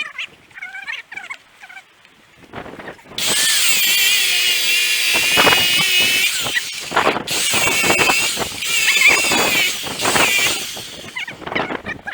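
Angle grinder cutting through a jammed rubber baler belt. It starts about three seconds in with a sudden high whine whose pitch wavers as the disc bites, dips briefly about halfway through, then carries on unevenly.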